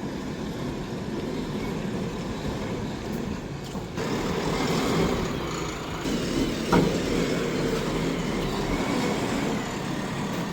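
JCB backhoe loader's diesel engine running steadily, getting louder about four seconds in, with a single sharp knock a little later.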